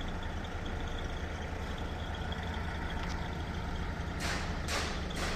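Heavy diesel machinery running with a steady low rumble. Two short hisses sound near the end.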